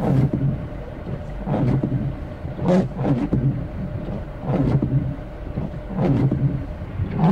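Car interior in slow traffic: a steady low engine and road hum, with the windshield wipers sweeping across wet glass about every second and a half.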